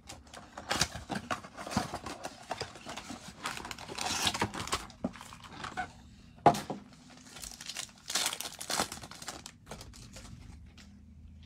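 Plastic wrapping on a trading-card blaster box and its card packs crinkling and tearing as it is ripped open, in irregular rustling spurts, with one sharp snap about six and a half seconds in.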